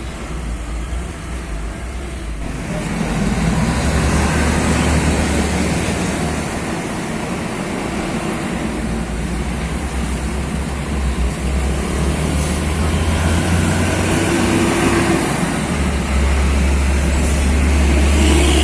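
Heavy trucks driving past, a steady rumble of engines and tyre noise that grows louder about two and a half seconds in and again near the end as trucks come close.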